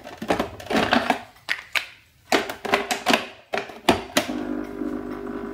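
Plastic clicks and knocks as a Nescafé Dolce Gusto capsule coffee machine's brewing head is handled. From about four seconds in, a steady buzz from the machine's pump running while not a single drop of coffee comes out.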